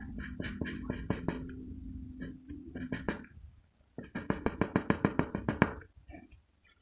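Graphite pencil scratching across paper in quick back-and-forth shading strokes, about eight a second, in bursts with short pauses between them.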